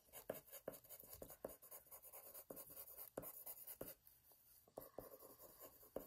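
Green colored pencil scratching faintly on paper in short, quick strokes while drawing grass blades. There is a brief pause about four seconds in.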